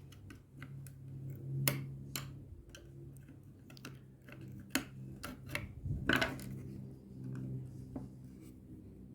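Scattered plastic clicks and light knocks from handling the door lock actuator as its small electric motors are lifted out of the housing, over a steady low hum.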